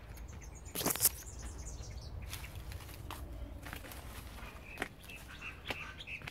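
Large philodendron leaves brushing and rustling, with footsteps on a dirt path, as someone pushes through close foliage. The sharpest rustle comes about a second in, and faint bird chirps sound in the second half.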